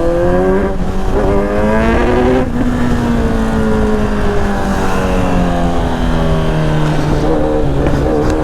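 Motorcycle engine accelerating hard: the pitch climbs twice in quick pulls with short breaks, like gear changes, then falls slowly as it eases off. A steady low rumble of wind runs underneath.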